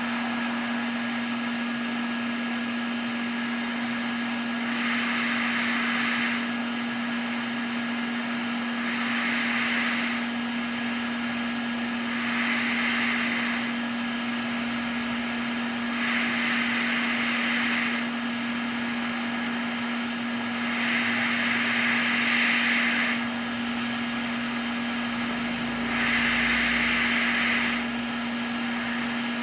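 An air tool blowing in repeated bursts of hiss, each about one and a half seconds long and coming every four seconds or so, over a steady electrical hum from the workbench equipment.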